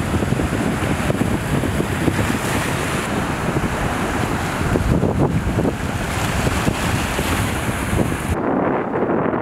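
Wind buffeting the microphone over small waves washing and fizzing onto a coral-rubble reef shore: a loud, gusty rumble with surf hiss. Near the end the hiss drops away suddenly, leaving mostly the low wind rumble.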